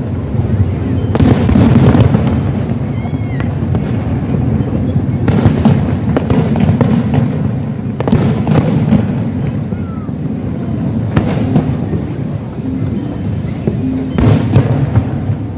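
Fireworks bursting in a run of sharp bangs, several close together, over a steady low background of music.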